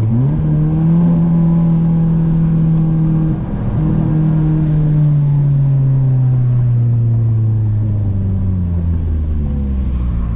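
Car engine accelerating hard at the start, its note holding, then breaking briefly about three and a half seconds in. After that the engine note falls slowly as the car slows toward idle.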